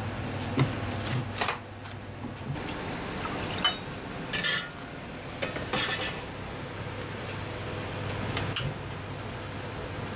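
Kitchen clatter: a knife working on a cutting board and a small metal pot being handled and set on a gas burner, a series of sharp knocks and metallic clinks, most of them in the first six seconds, over a steady low hum.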